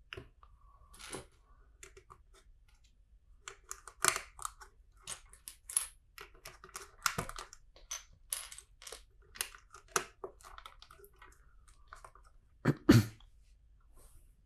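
LEGO plastic bricks clicking and rattling as pieces are handled and pressed together, in irregular sharp clicks, with two louder knocks close together near the end.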